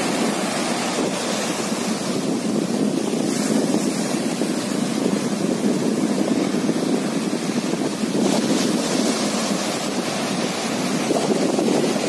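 Small sea waves breaking and washing up a sandy beach, a steady rush of surf with wind buffeting the microphone. The wash swells about eight seconds in and again near the end.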